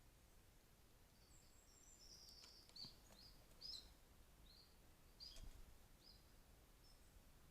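Great spotted woodpecker giving faint, short, sharp high calls, repeated roughly once a second, with a few faint clicks between them.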